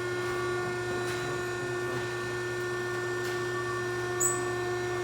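Baler operating with a load of clothes in it, its motor making a steady hum of several fixed pitches. A brief high chirp comes about four seconds in.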